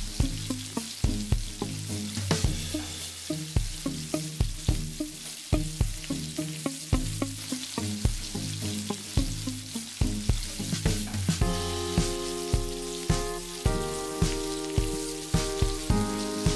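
Pork pieces sizzling as they fry in hot vegetable shortening in a pan. Background music with a steady plucked beat plays over the frying, louder in pitched notes from a little past the middle.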